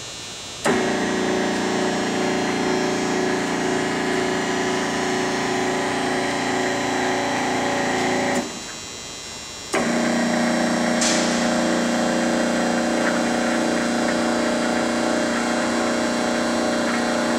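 Power elevation motor and gearing of a 1977 Ooya radial arm drill press running steadily, moving the arm along the column. It starts with a click about a second in, stops about three seconds before the middle of the clip's second half, rests for about a second, then starts again and runs on.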